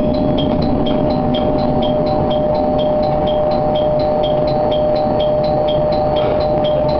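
Diesel railcar standing at a station, heard from the cab: a steady engine rumble with a constant hum. Over it runs a rapid high-pitched two-tone chirping, about four chirps a second.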